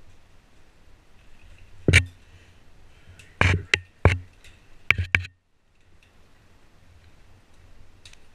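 Sharp knocks and clicks of caving gear being handled: one loud knock about two seconds in, then two quick clusters of three over the next few seconds.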